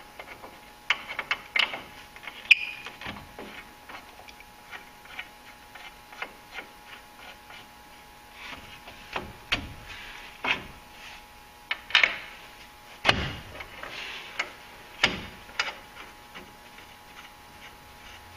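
Irregular metal clicks and clinks as the front brake caliper and its mounting bolts on a Ford F-250 Super Duty are worked into place by hand over the rotor, with a few louder knocks in the second half.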